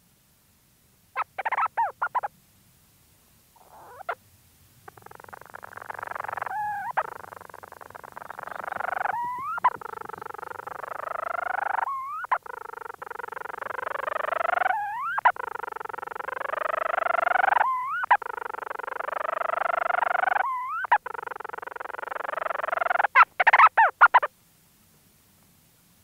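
Leach's storm petrel calling close up from its burrow: a long purring churr broken about every three seconds by a short rising hiccup note. Short bursts of rapid stuttering calls come about a second in and again near the end.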